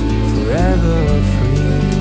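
Background music: a song laid over the footage, with a short gliding note about half a second in.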